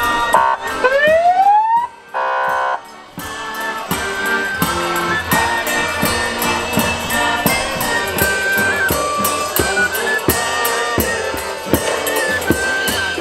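A carolers' folk street band playing on the march: a steady drumbeat under a high stepwise melody and accordion. Near the start come a short rising whoop and a brief held buzzing tone before the music settles in.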